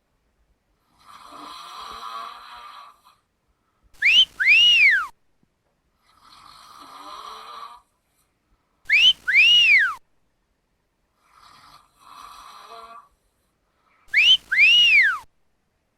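A person snoring in the comic whistling style: a raspy snore on the breath in, then a loud two-part whistle on the breath out, each whistle rising and then falling in pitch. The cycle repeats three times, about every five seconds.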